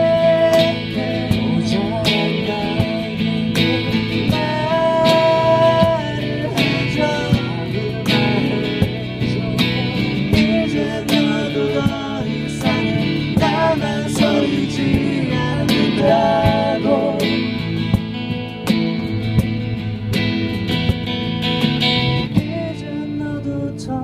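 Live acoustic band music: strummed acoustic guitar with a hand-played cajon beating time, and a man singing over it.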